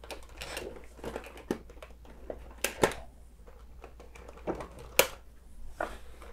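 Plastic and cardboard toy packaging rustling and crinkling as hands work inside the box, with a few sharp snips of small clippers cutting the ties that hold the figure in. The loudest snips come about three seconds in and again about five seconds in.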